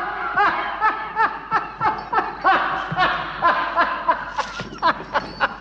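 Laughter: a long run of short, pitched laughing bursts, several a second, softening near the end.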